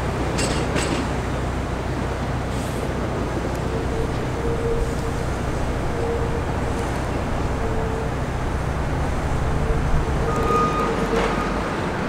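Subway train rolling slowly through a rail yard: a steady low rumble with a faint, wavering wheel squeal that comes and goes, and a couple of sharp clicks near the start. The low hum stops shortly before the end.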